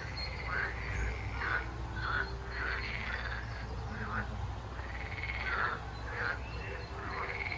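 Frogs croaking in a run of short repeated calls, about one or two a second, which a rider takes to be played through hidden loudspeakers as part of the ride's theming.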